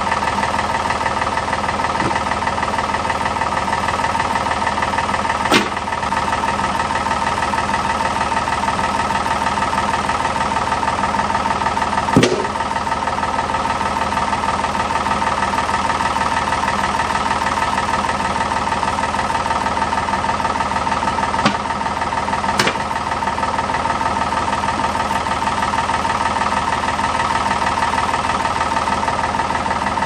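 Backhoe engine idling steadily, with a few sharp knocks of log rounds landing in its steel loader bucket, the loudest about midway.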